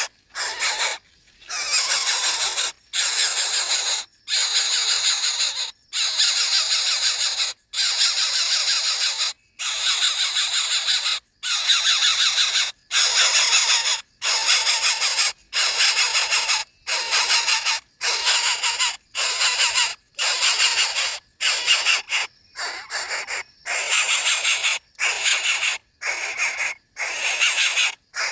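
Nestling birds' begging calls: harsh, raspy, squealing calls in repeated bursts of a second or so with short breaks between them.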